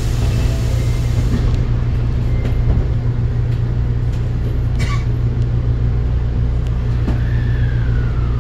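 Osaka Metro 22 series subway car running, heard from inside the passenger car: a steady low rumble of wheels on rail, with a sharp click about five seconds in and a tone that falls in pitch near the end.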